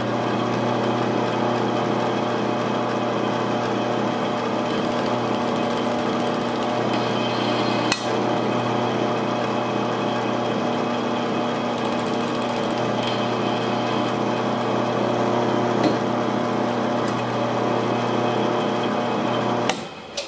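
Drill press running steadily with a Tapmatic RX30 tapping head in its spindle, giving a constant hum. There is a single sharp click about 8 seconds in, and the machine stops near the end.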